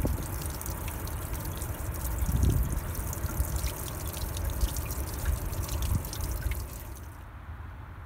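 Meltwater dripping and trickling off the edge of melting shore ice onto wet rocks, a rapid patter of small drips over a low rumble. The dripping stops about seven seconds in.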